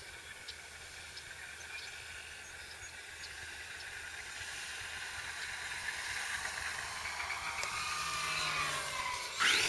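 RC model Cessna 182 flying in low, the whine of its electric motor and propeller growing louder and dropping in pitch as it passes close, with a sharp rush of sound about nine seconds in.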